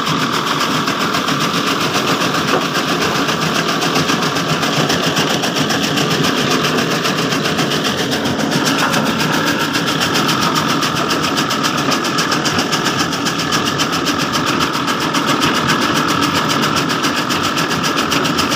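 Chaff cutter driven by an electric motor, running and chopping green fodder: a steady machine hum with a fast, even clatter from the cutting blades.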